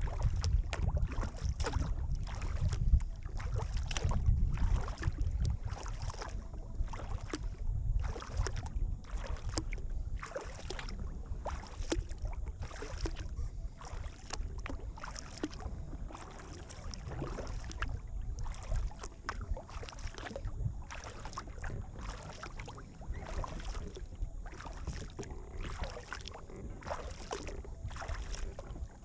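Double-bladed kayak paddle dipping and pulling through river water in regular, evenly paced strokes, each with a splash. Low wind rumble on the microphone is strongest in the first few seconds.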